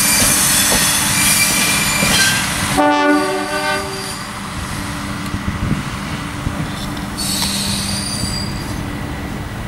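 Bluebird diesel railcar running past on the rails, its wheels giving a high squeal, with one horn blast of about a second roughly three seconds in. Afterwards the running noise drops somewhat as it moves away, and the wheel squeal comes again near the end.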